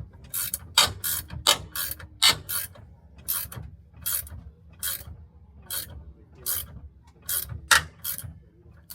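Ratchet wrench clicking in repeated short strokes, about two a second, turning the centre bolt of a steering wheel puller to force the wheel off its shaft.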